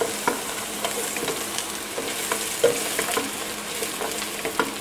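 Chopped onion and garlic sizzling as they sauté in a square nonstick pan, stirred with a nylon spatula that scrapes and taps the pan now and then.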